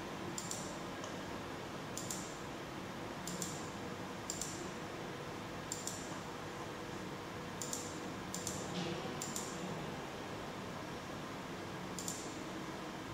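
Computer mouse buttons clicking through on-screen menu settings: about nine single sharp clicks at uneven intervals, over a steady low hum.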